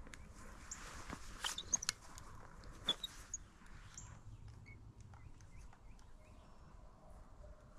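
Quiet outdoor background with a few sharp clicks and rustles from a hunter handling his gear and a shotgun, the loudest about one and a half and three seconds in, with a few faint short high chirps.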